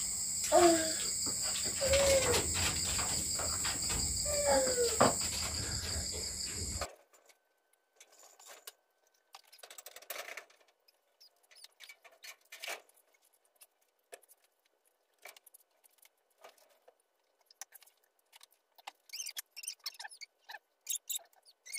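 Steady night chorus of crickets, with three short sliding calls over it, cuts off abruptly about seven seconds in. Only faint scattered clicks and taps follow.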